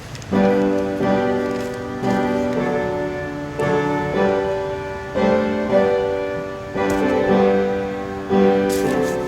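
Piano playing a slow hymn introduction, with full chords struck about every second and a half and each one dying away before the next.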